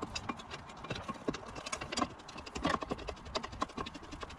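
Irregular light metal clicks and taps as a new front brake pad is worked into the caliper carrier beside a new brake disc.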